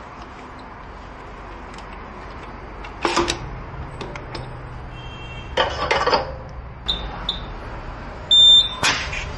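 Digital tyre inflator's keypad beeping as its buttons are pressed to set the target pressure to 3.5 bar: a few short high beeps, then a louder half-second beep near the end. Short knocks and clatter from the wheel being handled a few seconds in and near the end.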